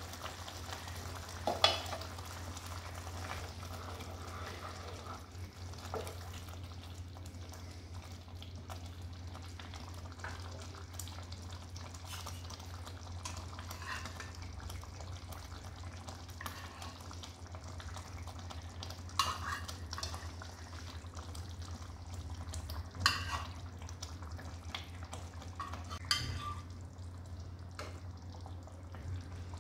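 Thick curry gravy simmering and bubbling in a nonstick pan over a steady low hum, with a few sharp clinks of a lid and a spatula against the pan, the loudest about two seconds in and again near the end.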